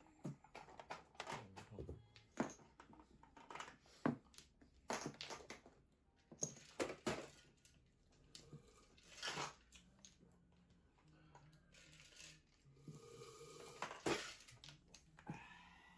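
Mahjong tiles clacking against one another and on the felt table as tiles are discarded and a hand is pushed into line, in sharp, irregular clicks.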